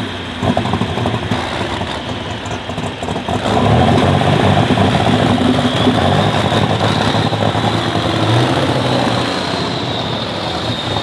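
Pulling tractor's diesel engine running hard. It gets louder about three and a half seconds in, stays loud, and eases a little near the end.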